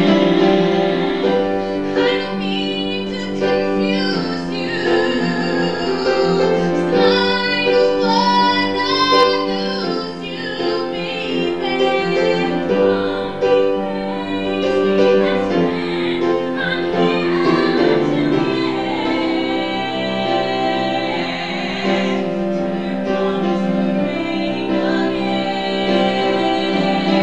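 Musical-theatre song: female voices singing with vibrato over a live piano accompaniment.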